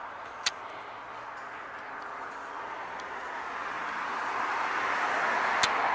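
Noise of a passing vehicle that swells gradually, loudest near the end, with two short sharp clicks, one about half a second in and one near the end.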